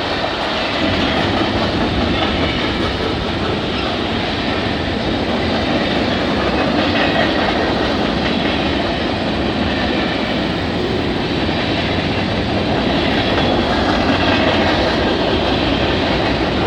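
CN freight train rolling past, its hopper and gondola cars clacking steadily over the rail joints.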